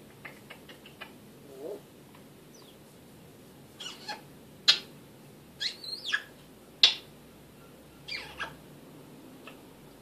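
African grey parrot making about six quick clicks, then, from about four seconds in, a string of short, sharp whistles and squeaky calls, some sliding up or down in pitch.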